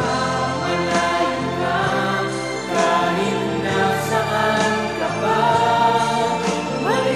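Filipino Christmas song: a group of voices singing together over an instrumental backing track.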